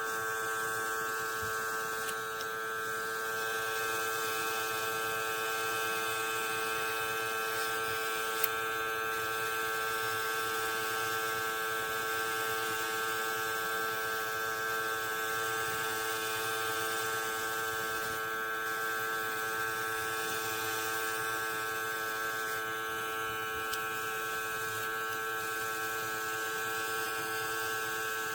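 Small electric airbrush compressor of a portable airbrush kit running steadily with a constant motor whine, with a single click about eight seconds in.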